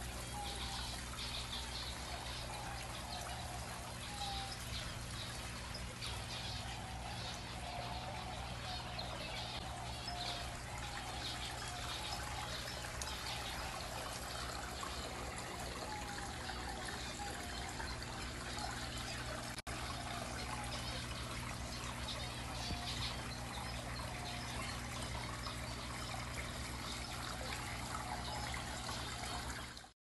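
Steady trickling water with small birds chirping over it, over a low steady hum.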